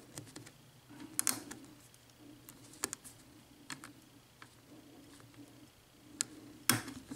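Single-pin picking of an Abus 72/40 padlock: scattered sharp clicks of the pick and pins in the keyway, with a louder clatter near the end as the lock comes open.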